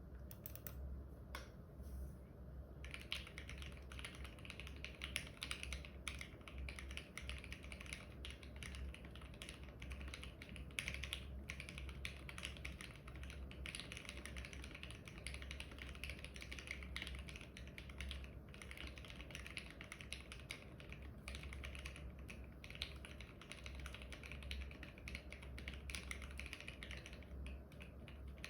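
Typing on a custom 60% mechanical keyboard: a Tofu 60 case with brass plate and lubed Durock linear switches, foam-dampened and pseudo-gasket mounted, giving a dense patter of keystrokes. It starts with a few scattered key presses, then settles into fast, continuous typing from about three seconds in.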